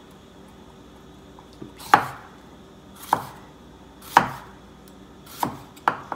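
Chef's knife slicing through bell peppers and knocking on a wooden cutting board: about six sharp chops, roughly a second apart, coming closer together near the end.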